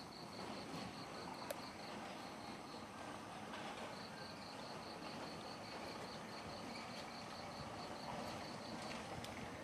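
An insect chirping: a high-pitched, evenly pulsed trill that pauses for a second or so a few seconds in and again near the end, over faint outdoor background noise.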